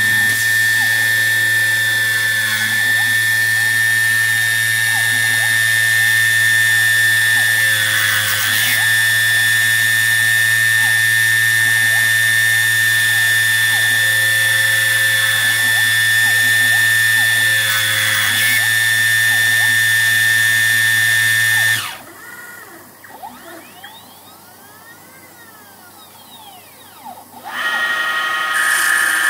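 Home-made CNC lathe cutting a metal bar: a steady high-pitched motor whine over a low hum, with a few brief bursts as the cutter bites. About 22 seconds in the motors stop and only faint rising and falling stepper-motor whines are heard for several seconds, then the machine starts up loudly again near the end.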